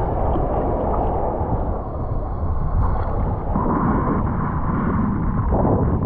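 Wind buffeting the microphone over seawater sloshing and lapping in the shallows around a wading person; a steady, rumbling rush with no let-up.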